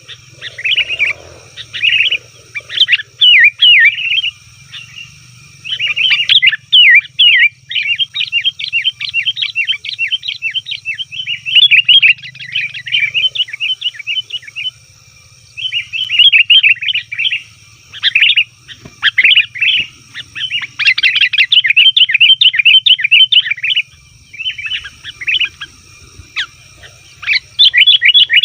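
Sooty-headed bulbuls (kutilang) calling noisily: rapid, excited chattering notes in loud bursts of a few seconds each, with short pauses around five, fifteen and twenty-four seconds in.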